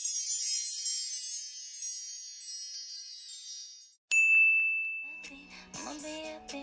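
Intro sound effects: a shimmering cascade of high chimes fading away over about four seconds, then a single bright ding, the loudest moment, ringing out. Soft background music starts about five seconds in.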